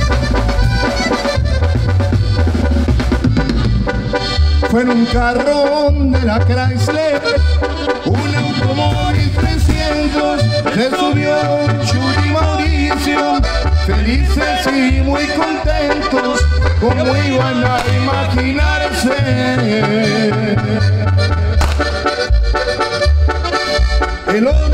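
Tamborazo band playing an instrumental passage live: the tambora bass drum pounds a steady beat under a wavering melody from the wind instruments.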